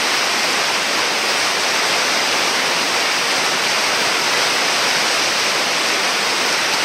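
Whitewater rushing steadily through a river hole, a loud, even roar of foaming water.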